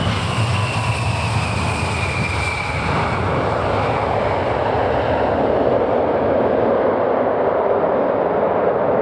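Tupolev Tu-154M's three Soloviev D-30KU-154 turbofans at high thrust as the jet runs past on its takeoff roll. A high whine falls in pitch over the first few seconds, then a steady rushing roar of exhaust grows louder as the aircraft draws away.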